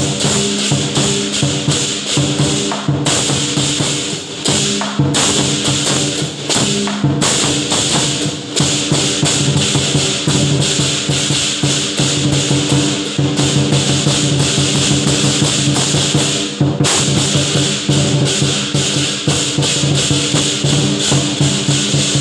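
Lion dance percussion: a big drum beating rapidly under clashing cymbals and a ringing gong, played without a break. The cymbals drop out for brief moments several times.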